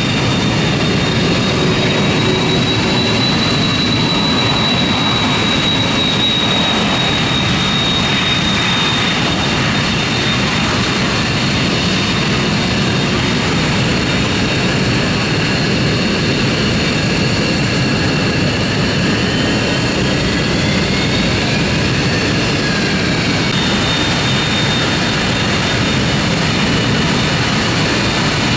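Military jet engines running at taxi power on the apron: a steady, loud rush with a high turbine whine that wavers and briefly glides in pitch about twenty seconds in.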